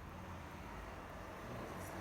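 Faint, steady low background rumble and hiss, with a brief faint rustle near the end.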